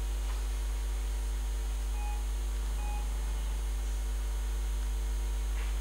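Steady low electrical mains hum, with two short faint electronic beeps about two and three seconds in.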